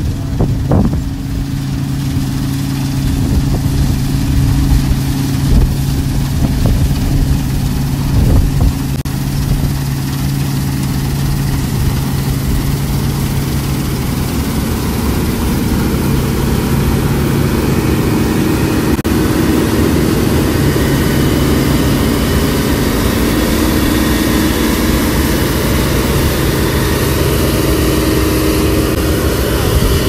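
New Holland combine harvester running steadily with a continuous engine and machinery drone. The tone changes about halfway through, as the low hum gives way to a denser, noisier sound.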